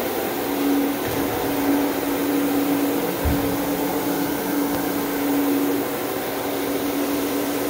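Electric counter-rotating brush (CRB) carpet machine running steadily: a constant motor hum with the brushes scrubbing the carpet pile, agitating it ahead of steam cleaning. A single low bump a little over three seconds in.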